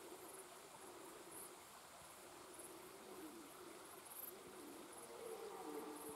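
Red deer stag roaring in the rut: low, drawn-out calls, faint at first and stronger near the end. Insects chirp in short, high, repeated pulses behind it.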